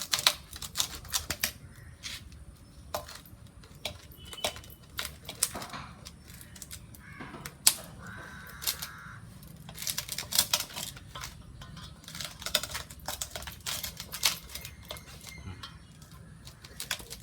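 A knife scoring a whole chicken, making a run of sharp, irregular clicks and taps as the blade cuts in.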